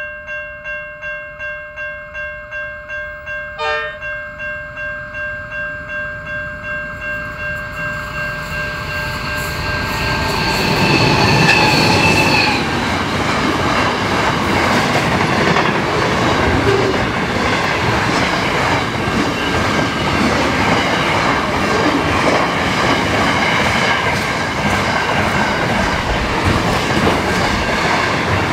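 A bell-like warning chime rings about twice a second. Then a train approaches and passes, a loud steady rumble and clatter of wheels on rail, with high ringing tones as it arrives.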